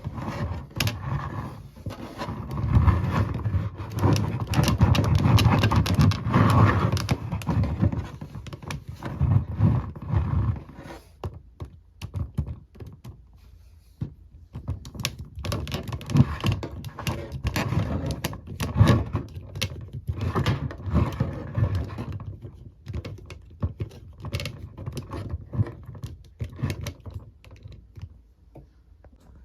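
Hands handling small plastic toy pieces: irregular clicks, taps and rubbing. The handling is busiest in the first ten seconds and again around the middle, and thins out near the end.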